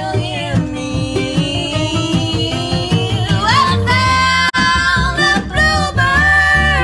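Music with a singing voice over guitar and a steady bass beat; it cuts out for a split second about four and a half seconds in.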